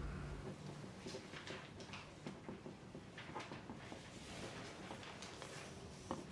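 Faint exam-room ambience: scattered small clicks, taps and scratches of pencils writing on paper, with a few sharper clicks near the end.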